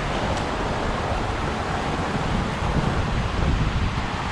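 Steady rushing noise of wind buffeting the microphone, mixed with water pouring out of a canal overflow.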